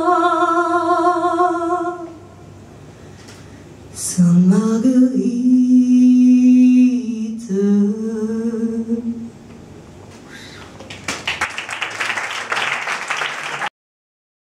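A woman's voice sings the closing long held notes of a French chanson, with a wavering vibrato, and stops about nine seconds in. About two seconds later an audience claps, and the sound cuts off near the end.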